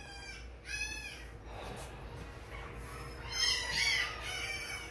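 Week-old XL American Bully puppies crying with short, high-pitched, meow-like squeals: one about a second in and a louder run of several about three and a half seconds in. The newborn pups are crying for their mother.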